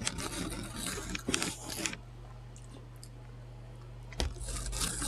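Close-miked chewing and crunching of a loaded Subway sandwich with lettuce, onions and peppers. The crunching is dense for the first two seconds, eases off, then a new loud crunchy bite comes a little past four seconds.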